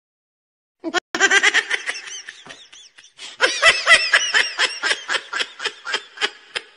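Laughing sound effect: a high-pitched laugh in rapid repeated ha-ha pulses, starting about a second in, in two runs with a short break about three seconds in.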